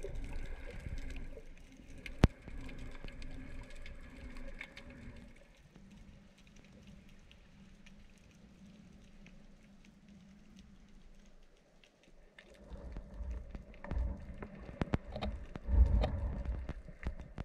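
Muffled underwater sound picked up by a camera housing as a freediver swims: low rushing water and thumps from movement, with scattered faint clicks and one sharp click about two seconds in. It goes quieter in the middle, then the low rushing swells again near the end.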